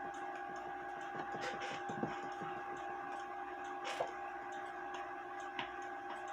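Faint, scattered small clicks and knocks from wooden clock-movement parts being handled, the sharpest about four seconds in, over a steady background hum.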